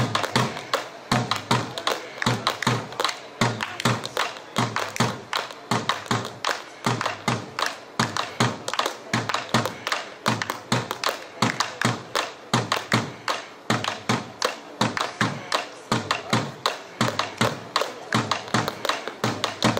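Large wooden-shelled drum with hide heads, a bombo-type drum, beaten with two sticks in a fast, steady rhythm of sharp taps and low thumps.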